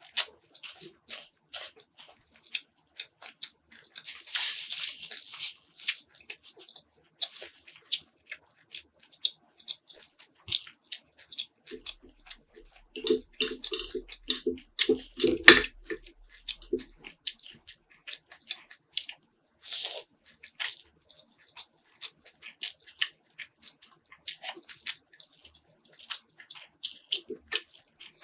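Close-up eating sounds of a person chewing spicy instant noodles and fried pork, with many short wet mouth clicks and smacks. A longer hissing stretch about four seconds in, and a low hum lasting a few seconds midway.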